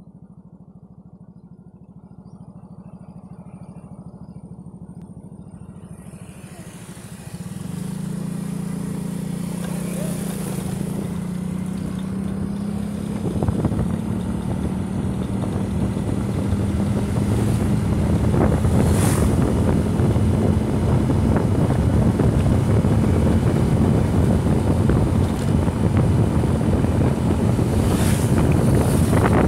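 Motorcycle engine running as the ride gets under way and picks up speed. A steady engine hum comes in about a quarter of the way through, and wind rushing over the microphone grows louder after that.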